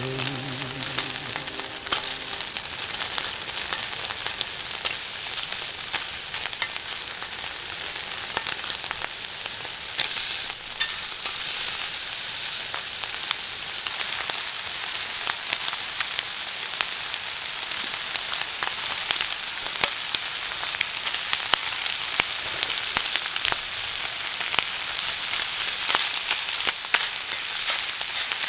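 Strips of pork frying in a steel pan over a camping gas stove: a steady sizzling hiss with many small spattering pops.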